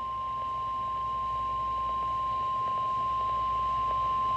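NOAA Weather Radio's single-tone warning alarm: one steady, unbroken high beep, slowly getting a little louder. It comes right after the coded alert data bursts and signals that a warning, here a flash flood warning, is about to be broadcast.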